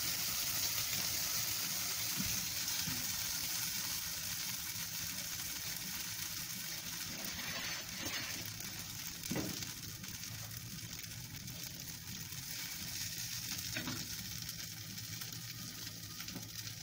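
A corn tortilla dipped in guajillo chile sauce frying in hot oil in a skillet: a steady sizzle that eases slightly over time, with a few light knocks along the way.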